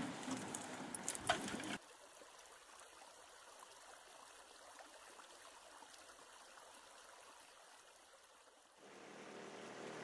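Water noise around an aluminium boat, with a few sharp knocks and clicks of fishing gear being handled. About two seconds in it cuts off abruptly to a faint steady hiss. Near the end, the hum of a small outboard motor sets in and grows louder.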